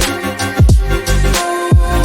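Background music with a steady beat: an electronic hip-hop style track with deep bass drops.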